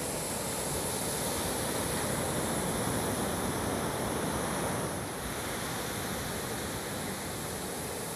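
Steady rushing noise of surf washing on a beach, mixed with wind on the phone's microphone. It swells a little, then eases about five seconds in.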